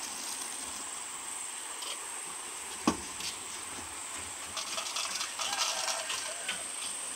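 Steady high-pitched drone of insects, with a single sharp knock about three seconds in and a rattling clatter of handling sounds from about four and a half to six seconds.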